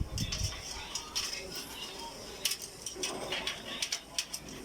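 Irregular light clicks and clatters of small hard objects being handled, with a dull knock at the start.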